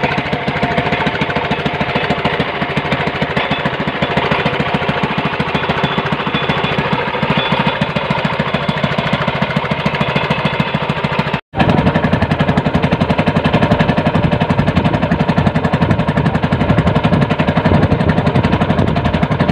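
Small engine running with a rapid, steady chugging. It drops out for an instant about eleven and a half seconds in, then carries on.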